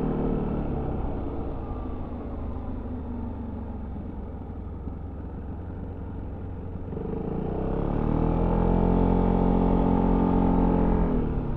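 Yamaha XMAX 300 scooter's single-cylinder engine through its stock exhaust, heard from on board while riding. The engine note fades within the first second to a low rumble, then about seven seconds in it rises again to a loud, steady note under acceleration before dropping off near the end.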